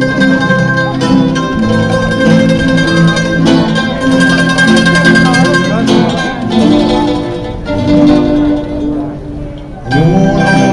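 A plucked-string ensemble of guitars and mandolins plays an instrumental introduction to a Venetian song. The music dips briefly, then swells louder about ten seconds in as the piece moves toward the choir's entry.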